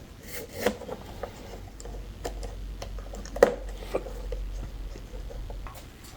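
Scattered light clicks and taps of hand work on a guitar body during a glue-up, with one louder knock about three and a half seconds in.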